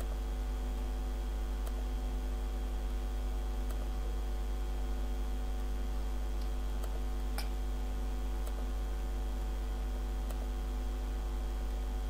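Steady electrical mains hum picked up by the recording microphone, with a stack of fainter steady hum tones above it. About six faint, sharp computer-mouse clicks come at irregular intervals.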